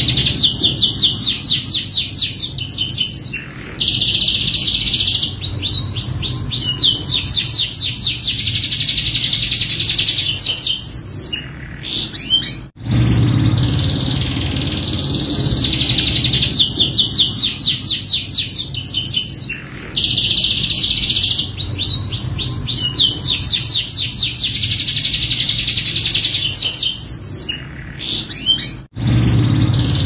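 Domestic canary singing a long, varied song of fast, high trills and rolls. It is a looped recording: the song cuts off abruptly about halfway through and again near the end, and the same passage starts over each time.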